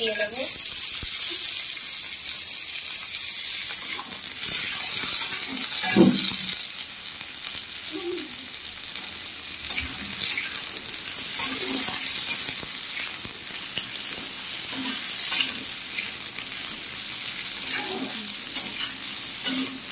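Sliced carrot and green capsicum sizzling in hot oil with onions in a kadai, loudest in the first few seconds, with a metal spatula scraping and knocking against the pan as they are stir-fried.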